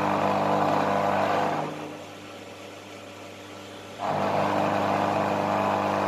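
Washing machine single-phase capacitor-run AC motor running steadily with a hum. Its sound dips for about two seconds in the middle, then comes back abruptly.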